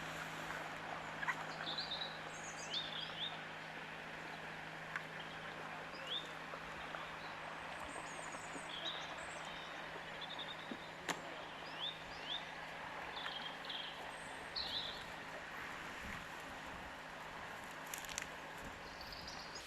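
Wild birds singing and calling in short chirps throughout, over a steady low hum and background noise, with one sharp click about eleven seconds in.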